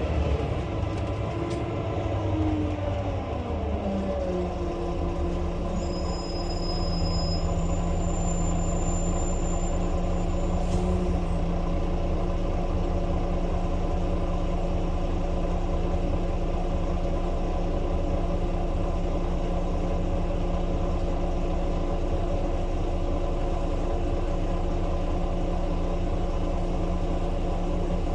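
Volvo B9 bus running, heard from the driver's cab: its drivetrain whine falls in pitch over the first few seconds as the bus slows, then settles into a steady drone with a constant hum.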